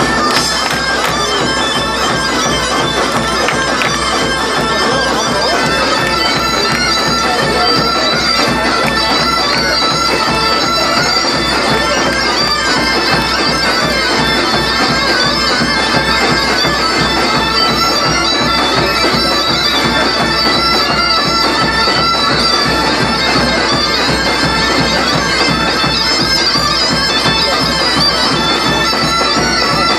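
Medieval bagpipes playing a tune together over their held drones, amplified through a PA, with a steady beat underneath, all at an even, loud level.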